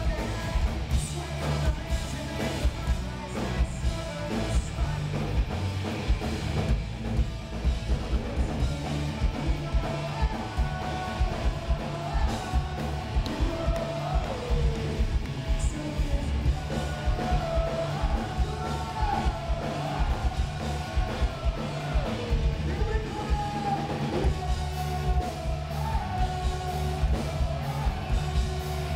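Pop-punk band playing live and loud: electric guitars, bass and a driving drum beat, with a male singer singing over it.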